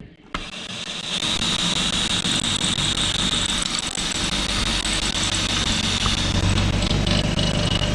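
Cordless drill running steadily for several seconds, driving a screw through trim into the corrugated steel wall of a grain bin. It has a steady high whine that drops slightly near the end.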